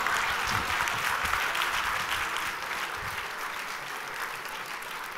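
Audience applauding, easing off somewhat in the second half.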